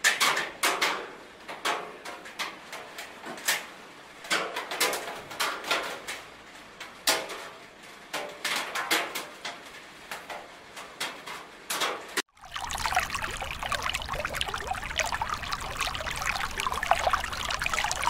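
Raindrops falling and dripping onto a wet surface, landing as separate irregular splashes several times a second. About twelve seconds in it cuts abruptly to a dense, steady patter of rain splashing into standing water.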